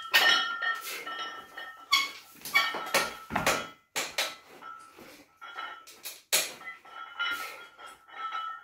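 Barbell loaded with iron plates clinking, clanking and ringing as it is handled and worked through lying triceps extensions (French press), with a heavier thump about three and a half seconds in.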